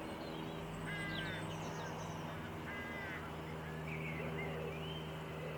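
Carrion crow giving two short cawing calls, about a second in and again near three seconds. Small garden birds chirp thinly in the background over a steady low hum.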